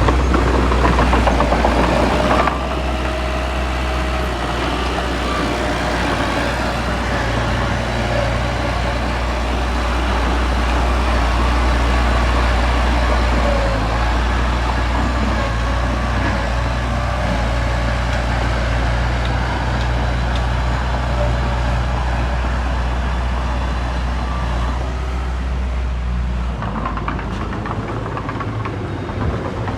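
Heavy diesel engine of earthmoving machinery running steadily with a deep drone and a wash of mechanical noise. The overall level drops slightly about two seconds in, and the deepest part of the drone fades near the end.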